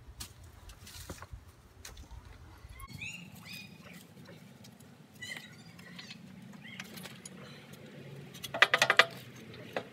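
Metal clinks and taps as the loader's rear brace and bolts are worked into place under a garden tractor's rear axle, ending in a quick, loud rattle of metal clanks about a second before the end. A bird chirps a few times.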